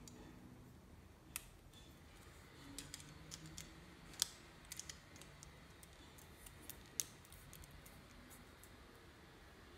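Plastic Lego pieces clicking and tapping as they are handled and fitted together: a few sharp clicks, the loudest about four seconds in, a quick cluster just after, and another near seven seconds, over faint room noise.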